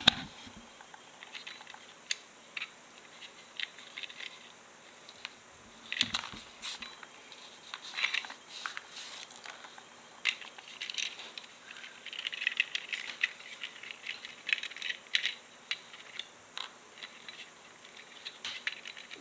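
Small clicks and light rattles of a model train car's wheelsets being popped out of its trucks and handled, with a few sharper snaps along the way.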